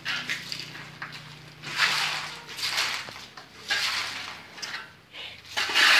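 Steel shovel scraping and digging into a heap of gravel and sand, a rough stroke every second or so, the loudest near the end.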